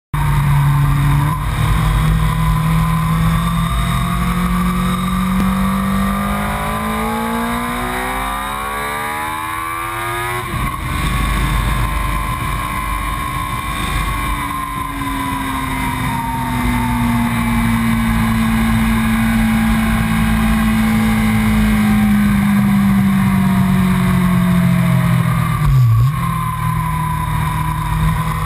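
Yamaha sport motorcycle engine under way on a race track, heard from on board. The engine note climbs steadily for about ten seconds, drops suddenly, then sinks slowly for a long stretch, with a brief sharp dip near the end. A low rush of wind runs under it.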